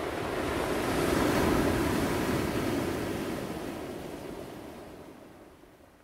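Ocean waves breaking and washing in: a rush of surf that swells to a peak about a second and a half in, then slowly dies away.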